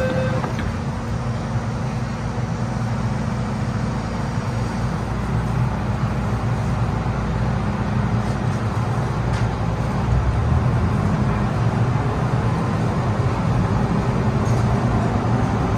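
Inside an MTR M-Train electric multiple unit with its doors shut: a steady low rumble while it stands at the platform, then growing stronger as the train starts to pull away about ten seconds in.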